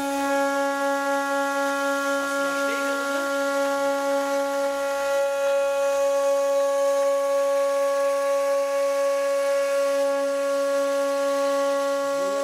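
CNC milling spindle driving a small end mill through an aluminium plate, giving a loud, steady pitched tone with many overtones.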